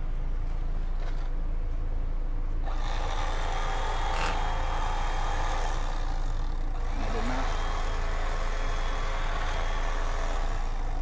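Steady low engine hum, with a louder even hiss laid over it from about three seconds in.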